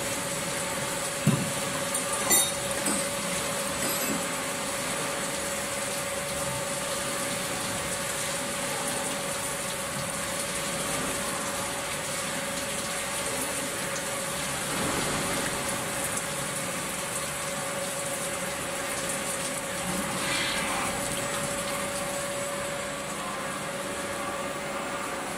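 CNC plate drilling machine's spindle running steadily as it drills small holes in a metal plate, with coolant spraying and splashing on the bit. A steady mid-pitched whine runs through the machine noise, with a few light clicks in the first four seconds.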